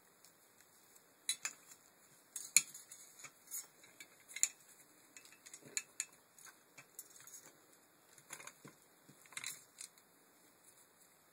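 Irregular light clicks, taps and rattles of the steel cables, plastic cable ends and pulleys of a Land Rover Freelander MK1 tailgate window regulator being handled and fitted together. The sharpest clicks come about two and a half and four and a half seconds in.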